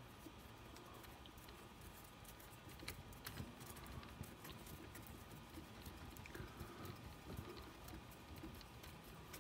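Faint, scattered small clicks and taps of a hand hex driver turning a screw into a brass C-hub on an RC crawler's front axle, the tool tip seating and slipping in the screw head.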